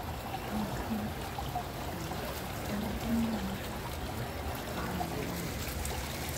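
Water running down an indoor wall fountain in a steady, even trickle and splash, with faint voices now and then.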